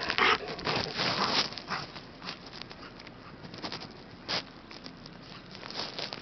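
Steps crunching through deep snow in an irregular run, thickest and loudest in the first second and a half, then sparser and fainter, with one sharper crunch about four seconds in.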